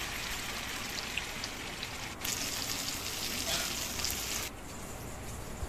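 Fish frying in hot oil in a pan: a steady sizzle with small scattered pops, louder for a stretch from about two seconds in, then dropping suddenly to a quieter sizzle near the end.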